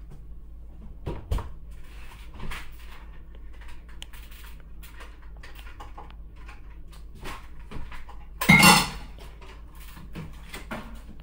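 Scattered knocks and clinks of dishes and utensils being handled at a kitchen sink, with one louder half-second burst about eight and a half seconds in.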